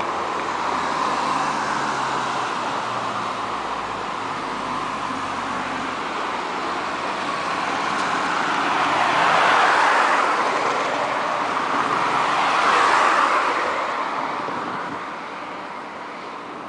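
Road traffic: cars passing close by, their tyre and engine noise swelling and fading, loudest about ten and thirteen seconds in.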